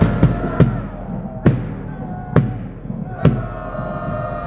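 A cheering squad's big bass drum is struck roughly once a second, over long held notes from the brass band and massed voices.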